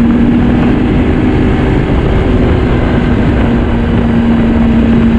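2009 Yamaha Vector snowmobile's four-stroke three-cylinder engine running steadily under way at cruising speed, its low drone wavering briefly a second or two in and then holding even.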